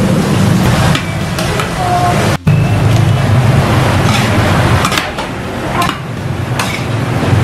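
Yakisoba noodles frying on a flat steel griddle, a continuous sizzle with metal spatulas scraping and clinking on the griddle as the noodles are tossed and mixed with vegetables. A steady low hum runs underneath.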